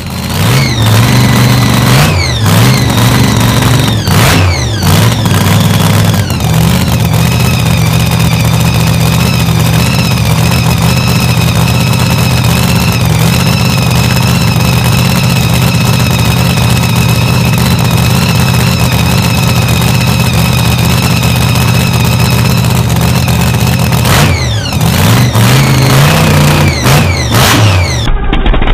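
Supercharged 526-cubic-inch Hemi V8 of a Pro Mod drag car running: blipped up and down several times in the first few seconds, then a steady loud idle, then revved again a few seconds before the end.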